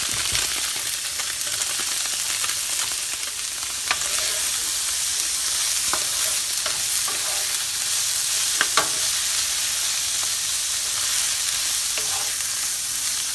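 Tofu and fresh vegetables sizzling steadily in hot oil in a stir-fry pan as they are stirred, with a few sharp clicks of the utensil against the pan.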